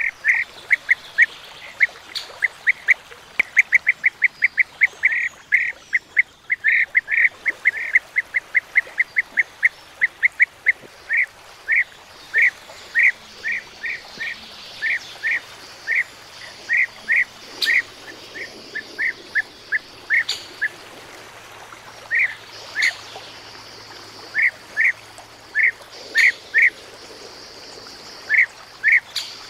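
European bee-eaters calling: a long series of short calls, all at much the same pitch. They come several a second at first and thin out to one or two at a time in the second half.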